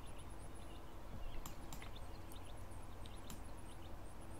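A few faint, sharp clicks of a computer mouse over a steady low hum of room tone.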